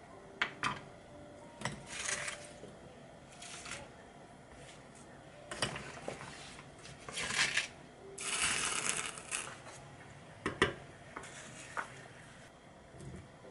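Cooking sounds at a stovetop pan of simmering tteokbokki broth: scattered light clicks and knocks of bowls and utensils, and several short noisy rustling bursts as sliced vegetables are tipped into the pan. The longest burst comes just past the middle.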